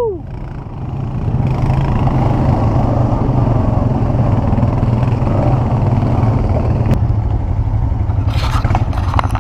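ATV engine running steadily, dipping at the start and building back up within the first second or two, with a few knocks and clatters near the end.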